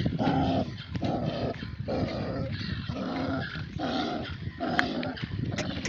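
Sheep and lambs bleating over and over, one call after another about every half-second.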